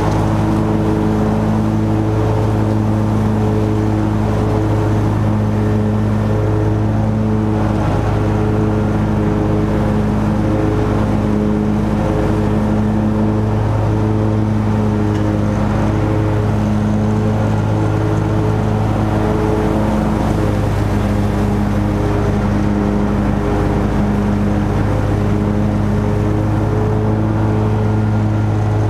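Lawn mower engine running steadily while mowing: a constant low hum with a slow, regular pulsing in its higher tones.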